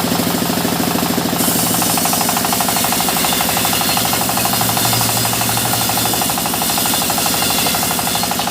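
Engine-driven sawmill saw running with a rapid, even pulsing beat; from about a second and a half in, a loud high hiss joins it as the blade cuts through mahogany, easing off right at the end.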